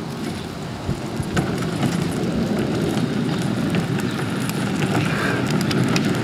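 Hard plastic wheels of a child's ride-on toy truck rolling over a concrete sidewalk: a steady rough rolling noise with scattered clicks, slowly growing louder as it comes closer.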